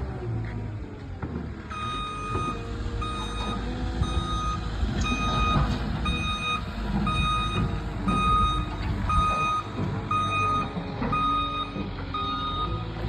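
A reversing vehicle's backup alarm beeping about twice a second, over the low rumble of its engine; the beeping starts a couple of seconds in and stops shortly before the end.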